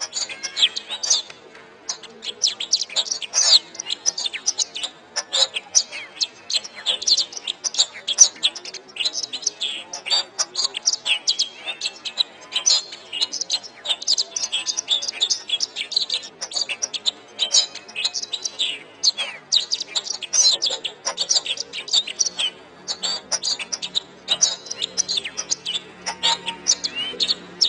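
Domestic canary singing a long, unbroken song of rapid high-pitched trills, twitters and chirps. A faint steady low hum comes in underneath near the end.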